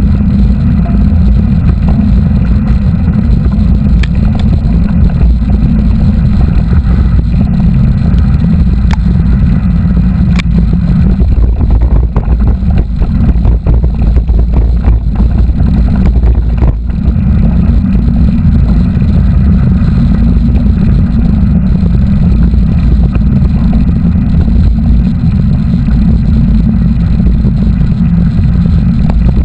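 Heavy, steady rumble of riding noise on a mountain-bike-mounted camera's microphone: wind buffeting and tyres on the trail. Scattered knocks from bumps come between about 11 and 17 seconds in.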